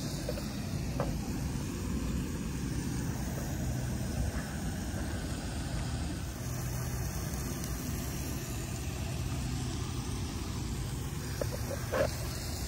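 Steady low outdoor rumble, with a few light clicks of a plastic fork against a foam meat tray just before the end.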